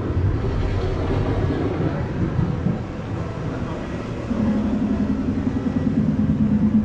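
A deep, steady rumble of an ambient soundscape. About four seconds in, a low droning hum joins it, pulsing quickly in loudness.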